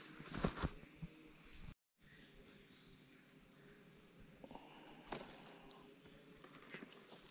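Steady high-pitched insect chorus, cricket- or cicada-like, with a few faint knocks. The sound drops out completely for a moment a little under two seconds in, then resumes.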